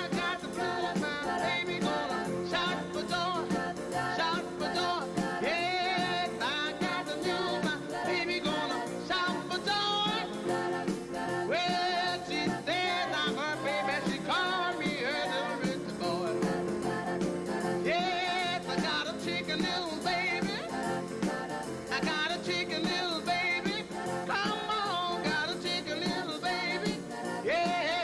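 1950s rock and roll record: a male lead singer over a backing band.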